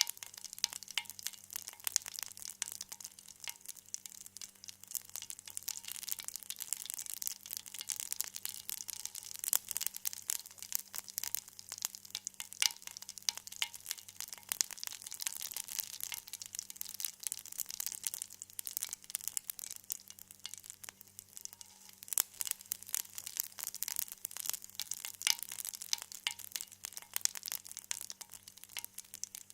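Food frying lightly in oil in a pan: a soft, steady sizzle with a dense stream of small irregular crackles and pops.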